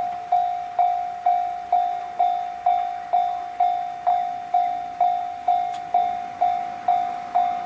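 JR standard electronic level-crossing alarm ringing, a single bell-like tone struck about twice a second, each strike dying away quickly. This is its pattern for a train signalled from one direction only, before the arrows show both directions and the tone changes.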